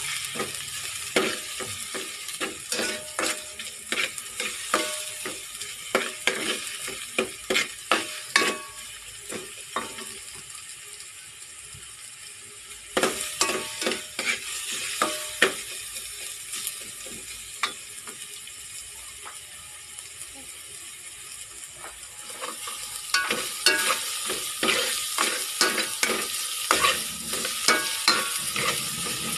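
Garlic, onion and ginger sautéing in a metal pot, sizzling steadily, while a spoon stirs and scrapes, clinking against the pot in clusters of sharp, ringing knocks. The stirring stops for a few seconds twice, about ten and eighteen seconds in, leaving only the sizzle.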